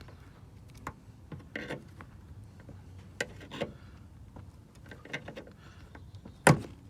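Pliers working the plastic pin out of a plastic push rivet, levered against a plastic trim removal tool: scattered small clicks and scrapes of plastic, with one sharp, loud click near the end.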